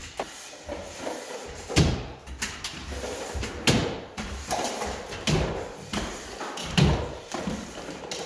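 Drywall stilts knocking on the bare floor with each step, a sharp clunk about every second and a half, over a faint rustle while drywall tape is fed along the ceiling joint.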